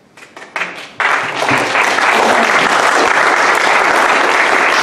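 Audience applauding: a few scattered claps at first, then full, steady applause from about a second in.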